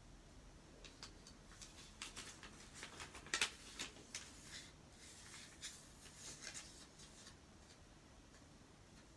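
A square sheet of origami paper being folded, unfolded and smoothed flat by hand, making faint crisp rustles and crinkles, loudest a little over three seconds in.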